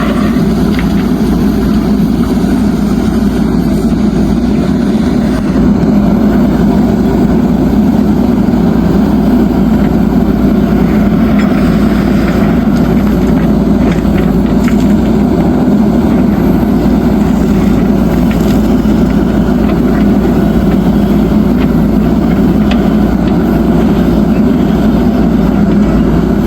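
Heavy diesel machinery running steadily: the engine of a JCB 3DX backhoe loader at work loading gravel, alongside a tipper truck.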